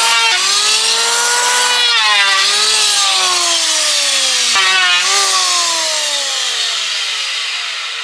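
Power saw cutting wood: the motor's pitch sags and recovers several times under the load of the cut over a steady hiss. From about five seconds in it winds down in one long falling tone.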